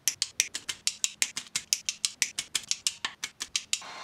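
Rapid clicking and snipping of hand wire strippers and crimpers working on harness wires, about six clicks a second. Near the end the clicking stops and a heat gun's short steady hum takes over.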